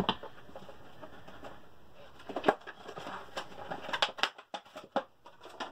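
A sharp click at the start, then scattered light clicks and knocks from about two seconds in, as a polymer Glock pistol is handled and set down on a wooden workbench.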